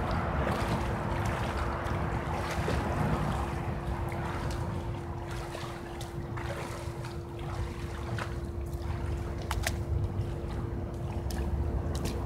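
Pool water lapping and splashing softly around a slowly moving swimmer, with scattered small drips and splashes. Under it are a rumble of wind on the microphone and a steady hum.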